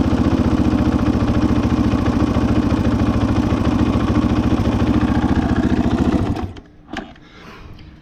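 KTM 500 single-cylinder four-stroke dirt bike engine idling low in neutral, in a steady fast chugging, then cutting off about six seconds in. A single knock follows shortly after.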